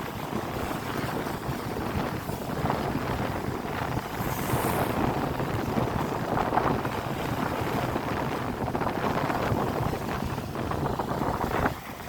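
Wind buffeting the microphone over the wash of sea water: a steady, rough rushing noise.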